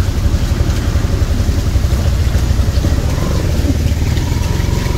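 Motor vehicle engine running, with a steady, heavy low rumble.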